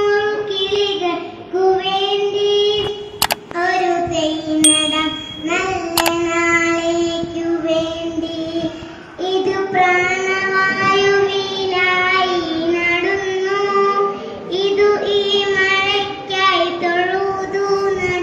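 A young girl singing solo into a microphone, unaccompanied, in long held notes that slide between pitches. A few sharp clicks come about three to six seconds in.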